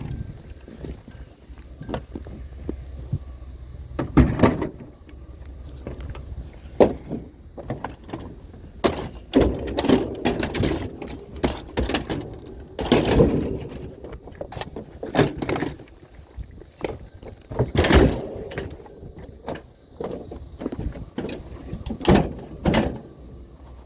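A long run of irregular knocks and bangs, a dozen or so, some with a short rattle after them, over a low rumble.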